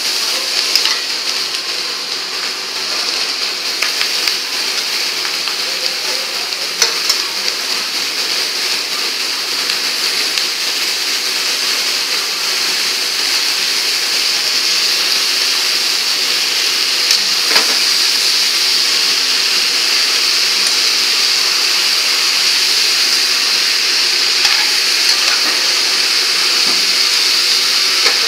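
Onions and capsicum sizzling in hot oil in a steel wok while a steel ladle stirs them, with a few sharp knocks of the ladle against the pan. The sizzle is steady and grows slightly louder in the second half.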